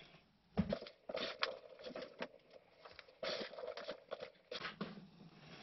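Faint irregular rustles and clicks of hands moving food scraps and moist worm castings about in a plastic worm bin. A faint steady hum comes in twice.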